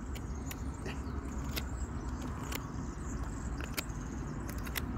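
Small cheap survival knife carving a dry wooden stick: scattered sharp clicks and snicks as the blade bites into and shaves the wood, over a steady low rumble.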